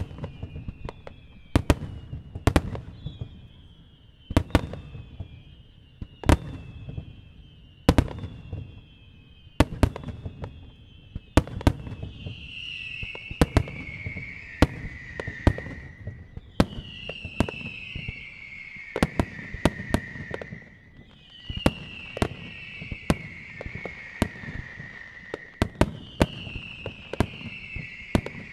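Star-mine fireworks finale: sharp booms of shells bursting every second or so over a low rumble, with a falling whistle that repeats every few seconds and becomes longer and stronger about halfway through.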